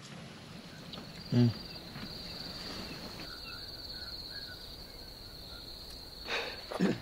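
A cricket trilling steadily at a high pitch for about six seconds. A short loud sound comes about a second and a half in, and two more come near the end.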